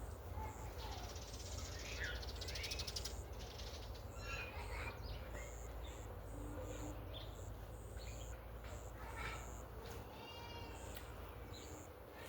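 Birds chirping and calling in short scattered notes, over a steady low rumble.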